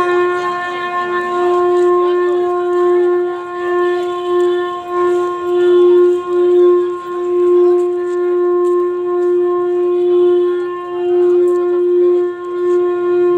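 A horn-like wind instrument sounding one long, steady note that swells and dips slightly in loudness.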